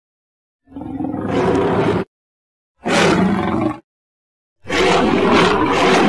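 Animated giant crocodilian's roar sound effects, three separate roars each cut off into dead silence. The first swells over about a second, the second is shorter, and the third starts near the end and carries on.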